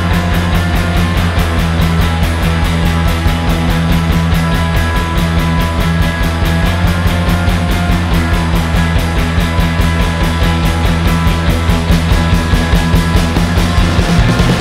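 Rock music with a steady, even beat.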